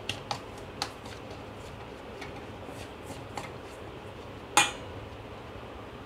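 Metal spoon clinking and scraping against a stainless steel bowl while stirring flour and milk into a batter: a few light clinks, then one sharp, louder knock about four and a half seconds in.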